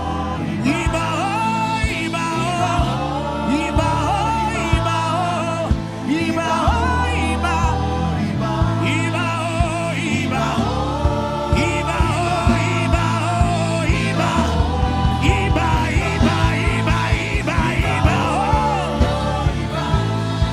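Gospel worship music: a sung melody over sustained bass and keyboard notes, with a steady drumbeat whose hits come faster about two-thirds of the way in.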